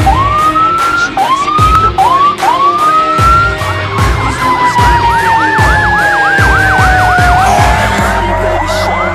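The fire truck's mechanical Federal Q2B siren is spun up again and again in short rising whoops that level off. It then coasts down in a long, slowly falling wail while an electronic siren runs a fast yelp over it.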